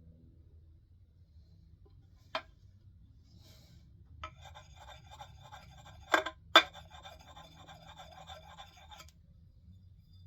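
Rasping of a sharpening tool drawn along an axe's steel edge in one continuous pass of about five seconds. Two sharp metallic clinks come in the middle of the pass, and a single tick comes about two seconds in.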